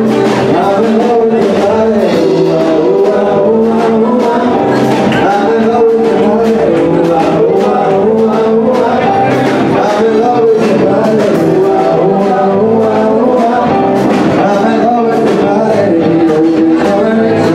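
Loud music with a singing voice over a steady beat.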